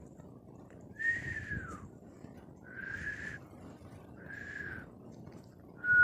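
A person whistling softly and breathily in short single notes with pauses between them, the airy hiss of the breath audible. The first note slides down in pitch, the next two hold steady, and a louder note starts near the end.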